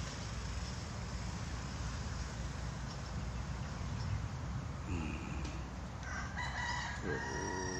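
A rooster crows near the end: one long call with several held pitches, preceded by a short call about five seconds in. Underneath there is a steady low rumble and hiss.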